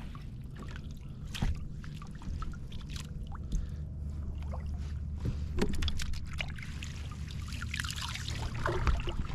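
Handling sounds in a fishing kayak: a few sharp knocks and light water splashing and dripping over a low steady rumble, the splashing strongest near the end.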